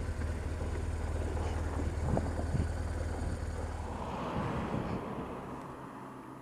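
BMW R1200 R's boxer twin engine running at low speed as the motorcycle rolls to a stop, with wind buffeting the helmet microphone. The low engine hum cuts out about four seconds in, leaving the wind noise.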